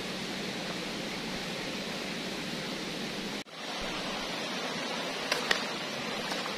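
Steady rush of a shallow rocky river. It cuts out for an instant a little past halfway, and two sharp clicks come close together near the end.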